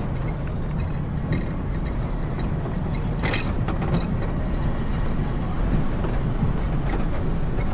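Angels Flight narrow-gauge funicular car rolling down its cable-hauled track: a steady low rumble from the wheels on the rails, with a few sharp clicks and knocks.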